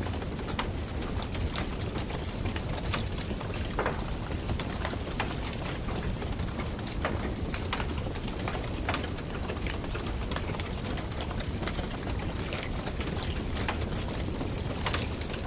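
Wood campfire burning: many irregular crackles and pops over a steady low hiss of the flames.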